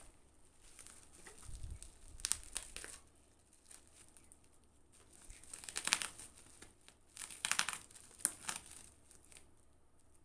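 Parcel packaging being handled and unwrapped: crinkling and rustling in several short bursts, a few of them sharper, like tearing.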